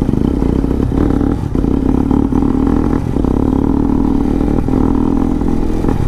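Motorcycle engine running at a steady speed while riding, a constant low drone.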